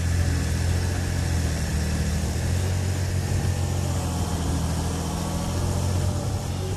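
Tractor engine sound effect: a steady, low engine running at an even pitch.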